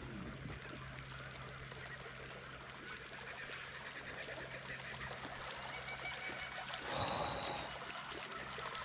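A baitcasting reel winds a topwater lure across the river surface: the lure gurgles softly over a steady low hum. About seven seconds in, a brief high bird call sounds over it.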